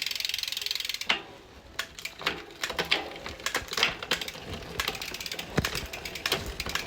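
Mountain bike drivetrain being run to test a freshly adjusted SRAM rear derailleur. The chain and rear hub give a steady whirr that stops about a second in. After that comes a run of irregular clicks and ticks from the shifting and the freewheel ratchet.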